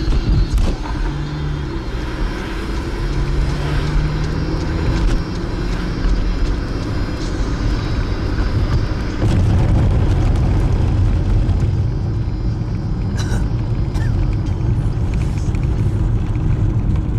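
Car driving along, heard from inside the cabin: a steady low rumble of engine and tyres on the road, which gets louder about nine seconds in.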